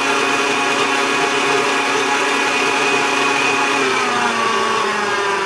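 Electric mixer motor running at speed, beating eggs into creamed butter and sugar, with a steady whine; about four seconds in its pitch drops as the mixer slows.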